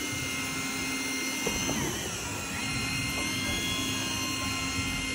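Boat engine running steadily at idle, a constant mechanical hum, with a short falling squeak about two seconds in.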